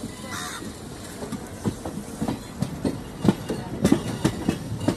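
Wheels of a moving Indian Railways passenger coach clattering over the rail joints, heard from the coach doorway, with knocks that grow louder and more frequent in the second half.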